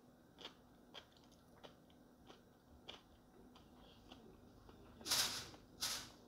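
Quiet mouth sounds from a woman at the table: a few faint lip or tongue clicks, then two breathy puffs of air near the end.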